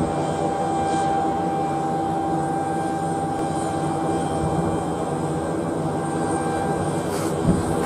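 Boeing 777 jet engines running steadily on final approach to land: a continuous rumble with a steady high-pitched whine on top.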